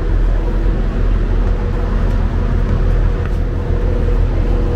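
Steady low rumble of a large railway station's train shed, with a few faint clicks now and then.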